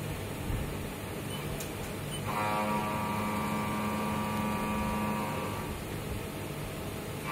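CNC milling machine cutting a metal block with an end mill. Over the steady run of the machine, a whine from the cut starts about two seconds in and stops a couple of seconds before the end.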